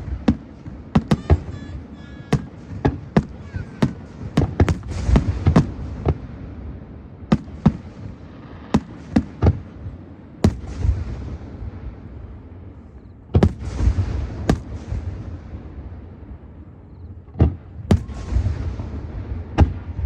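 Aerial fireworks show: a rapid, uneven series of shell bursts going off in clusters. Crackling hiss follows several of the clusters and fades away.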